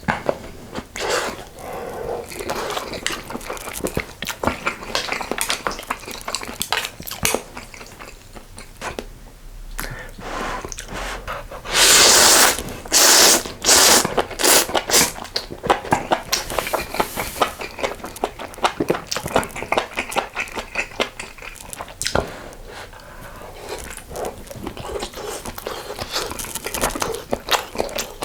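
Close-miked eating of spicy sausage stew with ramen noodles: steady chewing and lip-smacking clicks, with a few loud slurps about twelve to fifteen seconds in.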